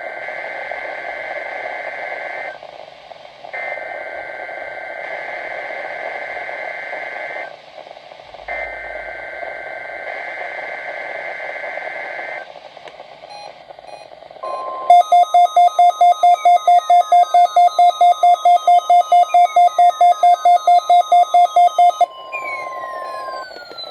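Emergency Alert System test off a weather radio broadcast: three bursts of the warbling two-tone digital data header over radio hiss. About 14 seconds in, a steady alert tone begins, joined by a loud rapid beeping of about four beeps a second and repeated falling whistle tones.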